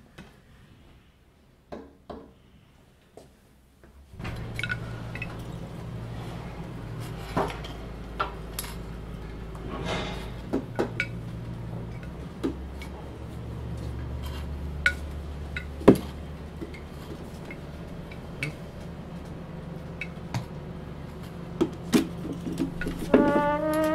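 Irregular sharp taps of a walking cane and footsteps on a hard floor. From about four seconds in, a steady low hum runs under them. Near the end, a portable radio is switched on and big-band music with brass starts.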